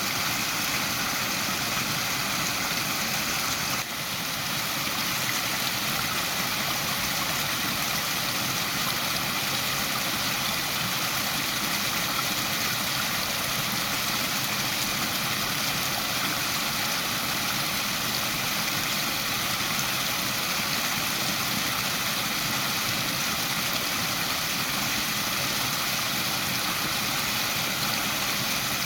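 Waterfall rushing in a steady, even roar of falling water, with a brief dip in level about four seconds in.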